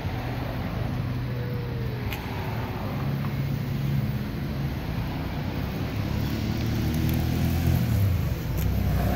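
Road traffic: car engines passing with a steady low hum that rises and falls.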